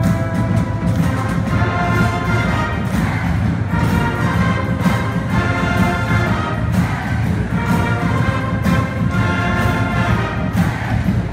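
A large school band playing loudly: a brass section of trumpets, trombones and sousaphones holding sustained notes over marching snare and bass drums, with drum hits throughout.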